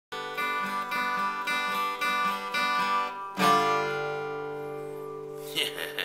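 Acoustic guitar strummed in quick, even strokes, then a single chord struck about three and a half seconds in and left to ring and fade.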